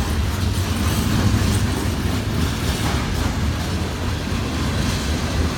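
Cars of a CN manifest freight train rolling past, a steady low rumble of wheels on rail with no horn.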